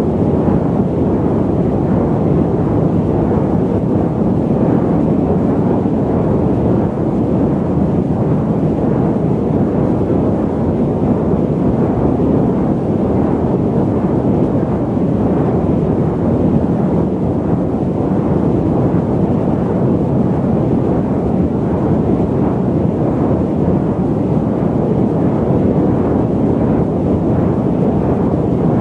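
Steady airliner cabin noise during flight: an even, deep rushing sound with little high hiss, unchanging throughout.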